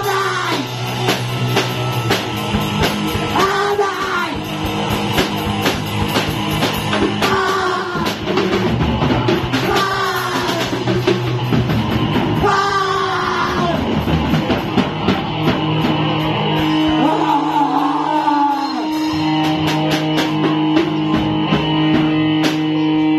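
Live rock band playing: electric guitar and drum kit with a male lead vocal. The singing stops about two-thirds of the way through while the guitar holds a long note over the drums.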